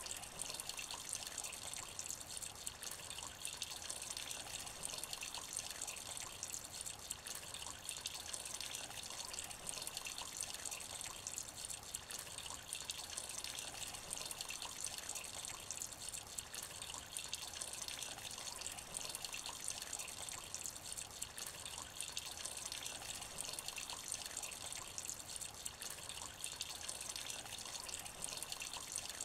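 Light rain falling steadily into a shallow puddle: an even hiss of many small drops splashing.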